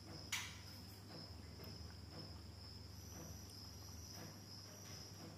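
A steady high-pitched trill over a low hum, with one sharp click about half a second in and faint soft ticks roughly once a second.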